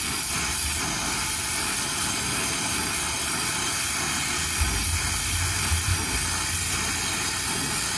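Brazing torch flame hissing steadily as it heats a copper refrigerant line at a filter drier joint from below, before the brazing rod goes on. A few brief low bumps come a little past halfway.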